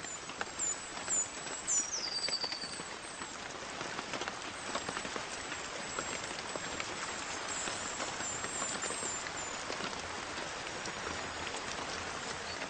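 Steady rain falling, a continuous patter of drops, with a few short high chirps in the first three seconds.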